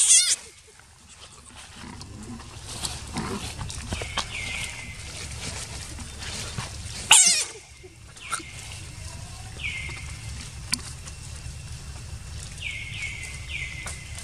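Two short, harsh animal screeches, one right at the start and one about seven seconds in, with several brief falling chirps in between and near the end.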